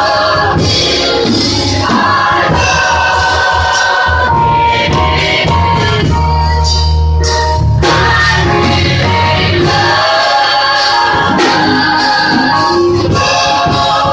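Gospel music: a choir singing with instrumental accompaniment and a steady bass line.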